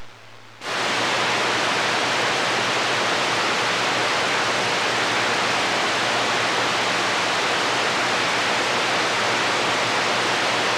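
CB radio receiver hissing with static between transmissions, the squelch open on an empty channel. The steady hiss comes up suddenly about half a second in after a brief quieter moment, with a faint low hum under it.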